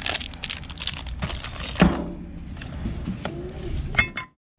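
Clear plastic packaging crinkling as gloved hands unwrap a new pump shaft, with a sharp click a little under two seconds in. Softer scattered clicks follow, then a brief ringing click near the end before the sound cuts off.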